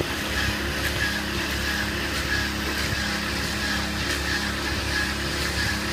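A motor running steadily: an even, low hum with a few constant tones and no change in speed.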